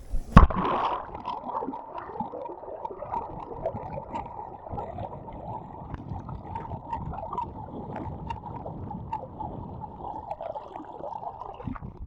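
Muffled gurgling and sloshing of water, with a loud thump about half a second in.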